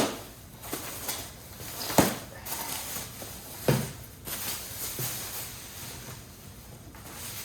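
Office chair parts and packaging being handled while a box is unpacked: a few sharp knocks, one at the start, one about 2 seconds in and one nearer 4 seconds, over rustling.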